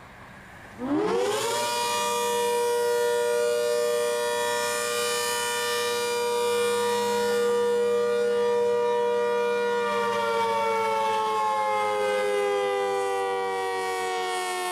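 ACA Hurricane 130 MKII outdoor warning siren with a rotating horn. It winds up quickly about a second in to a steady two-note chord, holds it, then begins slowly winding down in pitch near the end.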